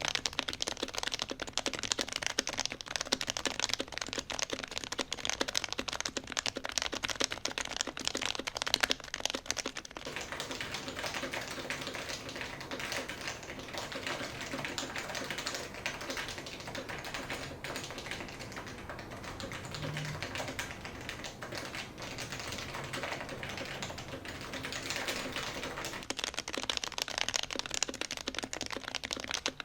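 Continuous fast typing on a custom Noxary Evija keyboard with an aluminium plate, Topre electro-capacitive switches taken from an HHKB Pro 2 and lubed with 205g0, and blank keycaps: a dense stream of keystrokes, somewhat softer through the middle stretch and louder again near the end.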